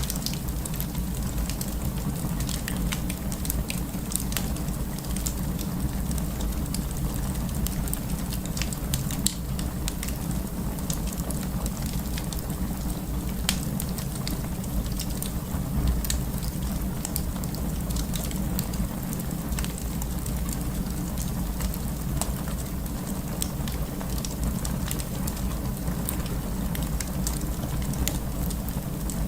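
Wood fire burning, with a steady low rumble and many small crackles and pops scattered throughout.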